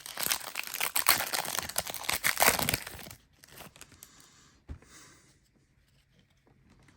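A trading card pack's wrapper being torn open and crinkled, loud for about three seconds, then quieter handling of the wrapper and cards with a small knock near the middle.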